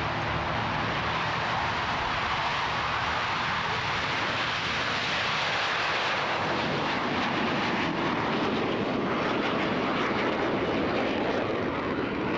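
Jet noise from two McDonnell-Douglas F/A-18A Hornets, each with twin General Electric F404 turbofans, taking off together. A steady, unbroken roar as they roll, lift off and climb away, its hiss brightest about halfway through as they leave the runway.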